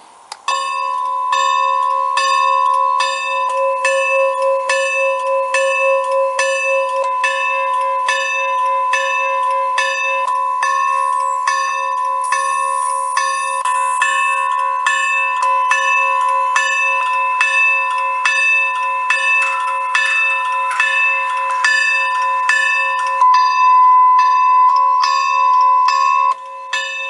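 Locomotive bell sound from a TCS WOW Sound model railroad decoder, played through a 28 mm high-bass speaker: a steady clanging at about two strikes a second, starting about half a second in.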